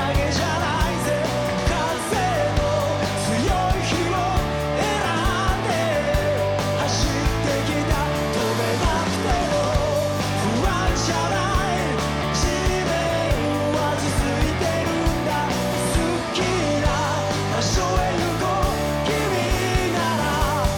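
Live rock music: a band playing with a steady drum beat under a male lead singer.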